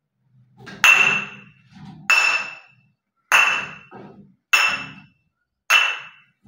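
Two hanging glass soda bottles swinging on strings and knocking together. There are five clinks about 1.2 seconds apart, each a sharp hit with a ringing ping that fades quickly.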